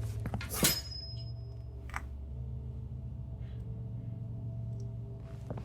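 Low, steady, ominous drone from a horror film's score, with held gong-like tones. A sharp knock sounds about half a second in, and a smaller one about two seconds in.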